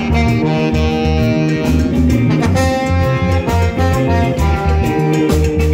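Live reggae band playing: trombone and saxophone play a melody line together in held notes over electric guitar, keyboards, a repeating bass line and drums.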